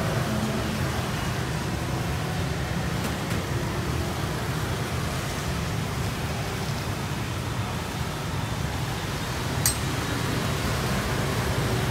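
Steady hiss of rain mixed with street traffic noise, with one sharp click near the end.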